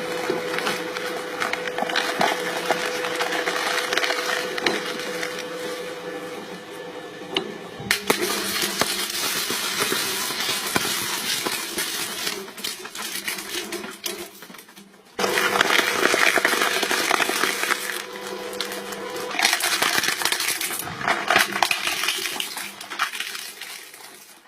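Crushing machine running with a steady motor hum while it crunches and cracks material, with many snaps and splintering noises. The sound changes abruptly twice, about a third and two thirds of the way through.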